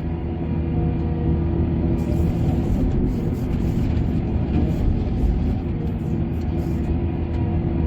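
Diesel engine of heavy mining machinery running steadily, a low, even drone.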